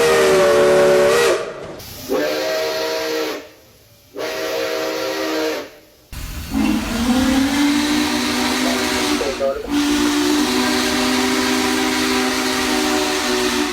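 Steam whistle blowing several notes together over a hiss of steam. A blast that is already sounding ends about a second in, two short blasts follow, then one long blast of about seven seconds; the pitch slides as each blast starts or stops.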